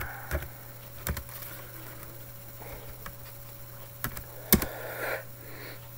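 A few separate clicks and taps on a laptop's keys and trackpad, the loudest about four and a half seconds in, over a low steady hum.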